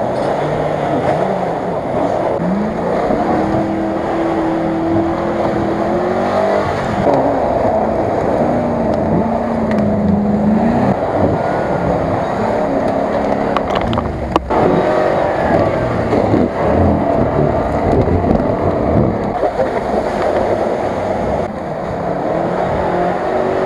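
Off-road 4x4 engines revving under load as the vehicles drive through deep mud, the engine pitch rising and falling. There is a brief break about 14 seconds in.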